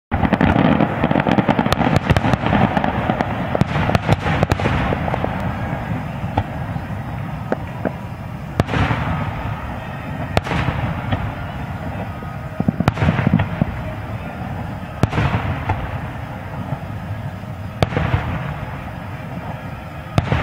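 Aerial firework shells bursting: a quick run of reports in the first few seconds, then single booms every two to three seconds, each trailing off.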